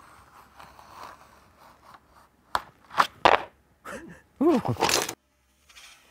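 Utility knife drawn along a steel ruler, scratching through paper-backed walnut veneer, then several loud sharp crackles and a brief wavering, falling sound as the thin veneer sheets are handled and flexed.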